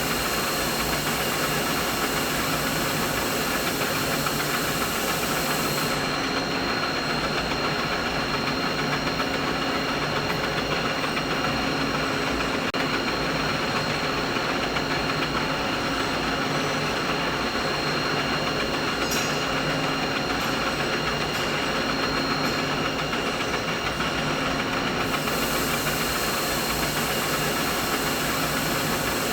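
Steady machine hum used as a mid-frequency tinnitus masking sound: an even mechanical whir with several constant tones running through it and no change in level. The faint hiss at the very top thins out from about six seconds in and comes back near the end.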